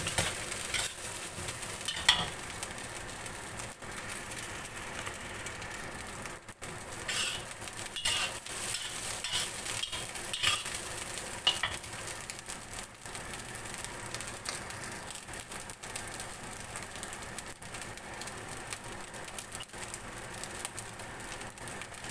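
Fried rice with Chinese sausage sizzling steadily in a wok, with a few short metal clinks of the spatula against the wok, most of them in the first half.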